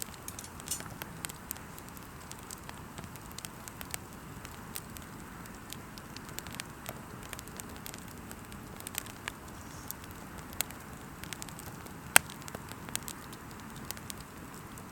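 Campfire crackling: wood popping in sharp, irregular snaps over a steady low hiss, with one loud pop about twelve seconds in.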